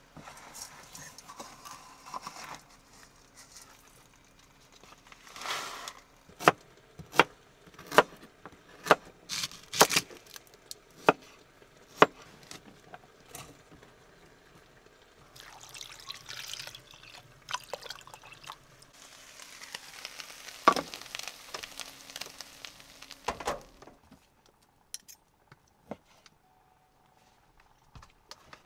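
Cooking prep on a wooden cutting board: a run of about ten sharp knife chops a little under a second apart, then stretches of rustling and scraping. A faint steady hum runs underneath and stops near the end.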